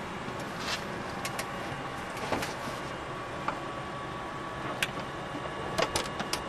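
Steady hum of cockpit machinery and air with scattered light clicks and knocks from hands working the overhead escape hatch and its fittings; the clicks come closer together near the end.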